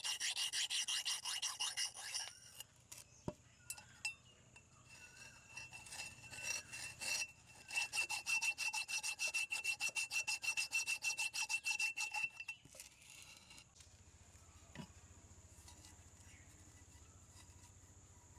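Quick back-and-forth scraping strokes on the rusty metal body of an antique charcoal iron as the rust is rubbed off. The strokes come in two steady runs with a steady high ring through them, the first at the start and the second a little before the middle. A few scattered scrapes fall between the runs. The strokes stop about two-thirds through, leaving a faint low hum.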